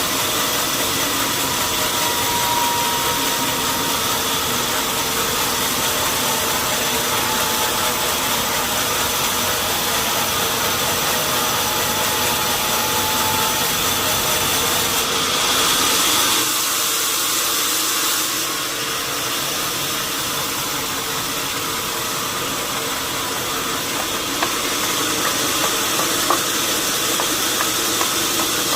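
Sawmill machinery running steadily: a continuous mechanical drone with hiss that shifts in character about midway, with a few light clicks near the end.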